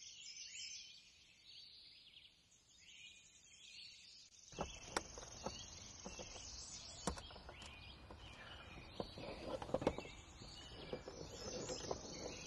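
Faint bird chirps and insects, then from about four and a half seconds in, light clicks and taps of wing nuts and wire being handled on an aluminium pedal plate.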